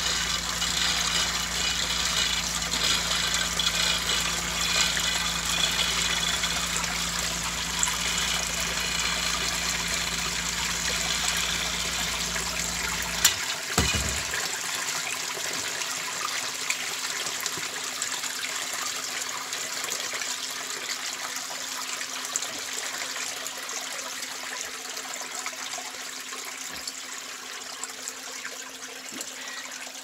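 Basement sump pump running with a steady low hum while groundwater pours from the drain-tile pipe into the pit. About halfway through, the motor cuts out with a short thump, and the inflow keeps splashing into the pit. The pump is short-cycling, switching on about every minute, because of the heavy inflow.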